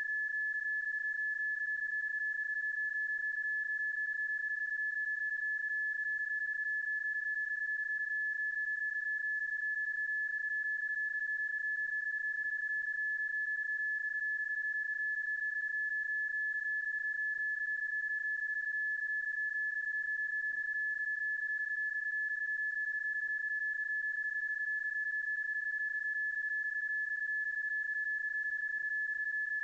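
PSK31 data signal audio, a looped sound effect: a single steady high-pitched tone over faint hiss.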